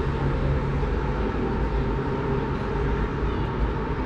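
Steady low rumble and hum of city traffic, cutting off abruptly near the end.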